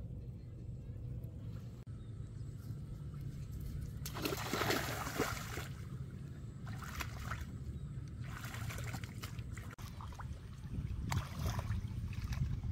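Hands splashing and sloshing through shallow muddy water while groping for fish. It comes in short bursts: the loudest is a little over four seconds in, followed by a few smaller ones, all over a steady low rumble.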